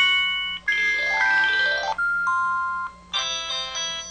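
MS550 mobile phone's message-alert tones played one after another: short melodic chimes, one of them a quick rising run of notes, with a brief break near three seconds.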